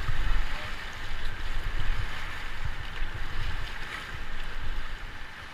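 Steady rush of river water with an uneven low rumble of wind buffeting the microphone.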